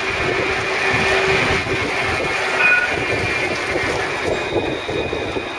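A Luas tram (Alstom Citadis) passes close by on its street track: a steady electric-drive tone and the rumble of steel wheels on rail. A brief high tone sounds about halfway, when the passing sound is at its loudest.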